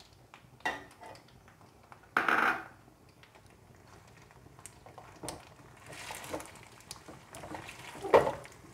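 A wooden spatula stirring and tossing spaghetti in a metal pan, with scattered knocks and scrapes against the pan. There is a louder scrape about two seconds in and a sharp knock near the end.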